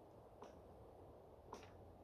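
Faint wind through a conifer forest, a low steady hiss, with two short sharp creaks from the trees about a second apart.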